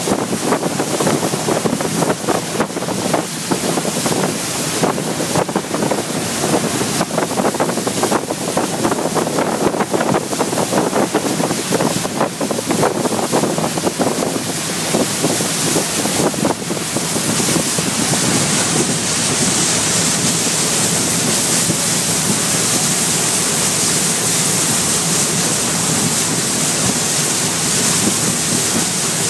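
Loud wind buffeting the microphone on a moving river boat, gusty and uneven for the first half, settling into a steadier rushing hiss from about halfway through.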